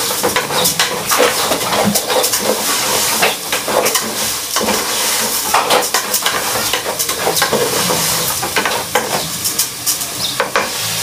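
Raw rice frying in oil with garlic in a pot, sizzling steadily while a spoon stirs it, with frequent clicks and scrapes of the spoon against the pot: the rice being browned before water goes in.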